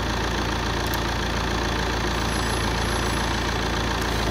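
Saab 9-3 petrol engine idling steadily under the open bonnet, with two faint clicks, about a second in and near the end.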